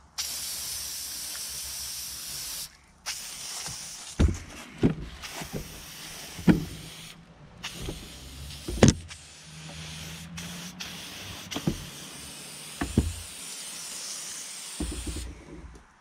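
Aerosol spray can hissing as it sprays the bulldozer's engine before winter storage, in long bursts that stop briefly about three seconds in, about seven seconds in and near the end. A few sharp knocks come in between, the loudest about nine seconds in.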